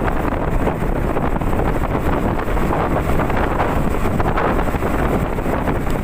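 Wind buffeting the microphone on a moving motorcycle, a steady loud rushing noise with most of its weight low down.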